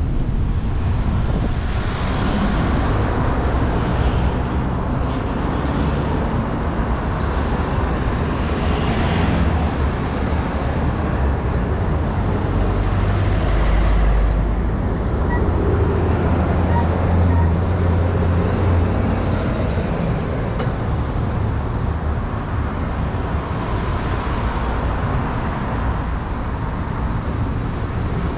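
Urban road traffic close by: cars and heavy vehicles passing, with a lorry's diesel engine running alongside as a steady low rumble that is loudest in the middle.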